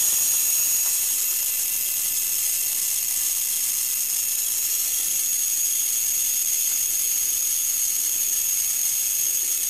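High-voltage spark discharging continuously at a spark plug with its ground electrode removed, driven by a homemade ignition-coil circuit: a steady hiss with a thin high-pitched whine on top.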